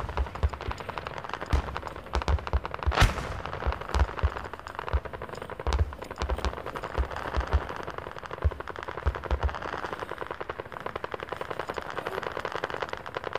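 Airsoft guns firing in rapid full-auto strings, a fast run of sharp clicks that carries on almost without a break, with scattered low thumps of the camera being knocked about.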